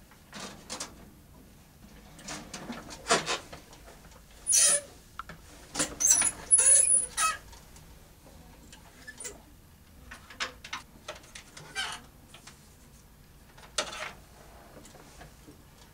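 Handling noises at a computer desk: scattered clicks, scrapes and short high squeaks, loudest about four to seven seconds in.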